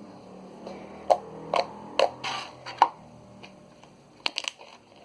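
A series of sharp, short clicks or taps: about five spaced out over a couple of seconds, then a quick cluster of three or four near the end.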